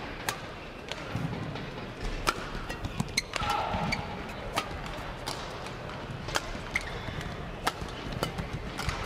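Badminton rally: rackets crack against the shuttlecock about once a second as the two players trade shots. A shoe squeaks on the court floor about three and a half seconds in.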